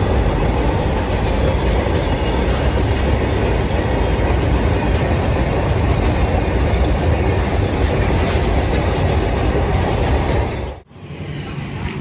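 Train running, a loud steady rumble with the clatter of wheels on the rails. It cuts off abruptly near the end, giving way to a quieter sound.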